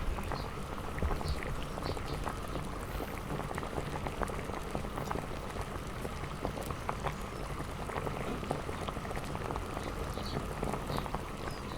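Self-heating instant hotpot still boiling: a steady fizz of many tiny pops and crackles.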